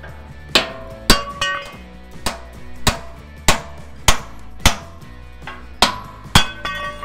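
Hammer blows on a rusted steel truck chassis rail, roughly one every half second, each hit ringing briefly like struck metal, during a teardown to knock out bolts and rivets. Background music plays underneath.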